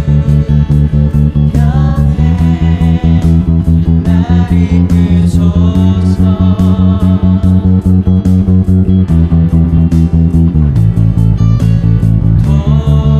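Church praise song with the bass boosted: loud bass guitar notes shift pitch every few seconds under a steady drum beat and other instruments.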